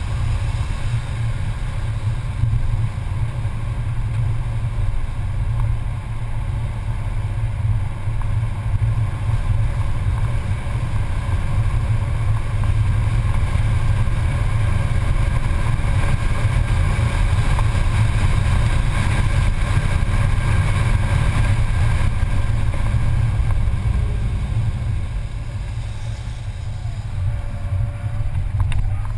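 Mercedes-Benz C280's engine running hard at track speed, heard inside the cabin over a heavy rumble of road and wind noise. Near the end the engine eases off briefly, then comes back up.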